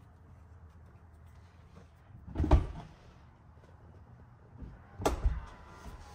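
Knocks and thumps of plastic trim and connectors being handled and pressed into place in a Tesla's rear centre console. There is one loud knock about two and a half seconds in and a cluster of knocks around five seconds, and a faint steady tone starts at about the same time as that cluster.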